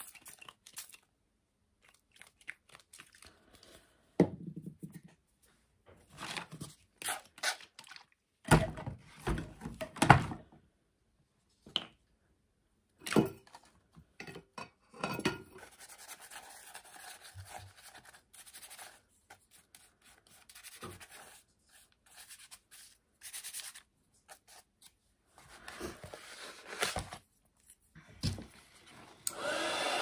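Scattered knocks, taps and rubbing from hands and a paintbrush working on paper at a table. Near the end a craft heat tool switches on and runs steadily with a blowing whine.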